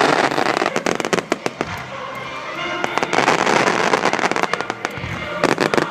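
Aerial fireworks shells bursting, followed by dense crackling. There is a loud wash of bursts at the start and another about three seconds in, with runs of sharp rapid cracks about a second in and again near the end.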